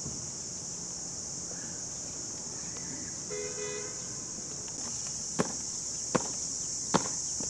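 Three sharp boot stamps on concrete, about three-quarters of a second apart, as a soldier marches in parade step. Under them runs a steady high insect drone, and about halfway through a short two-pulse horn toot sounds.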